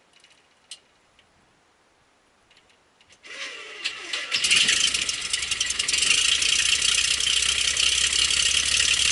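A 1958 Cessna 172's engine being started: a few faint clicks, then about three seconds in the starter cranks the propeller with a short rising whine, the engine catches about a second later and settles into a steady run.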